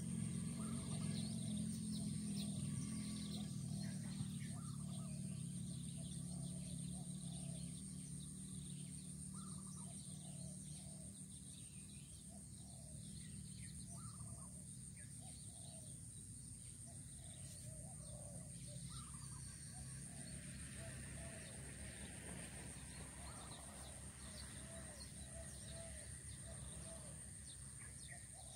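Faint field ambience: many short, scattered distant bird chirps over a steady high hiss, with a low hum that fades out over the first ten seconds or so.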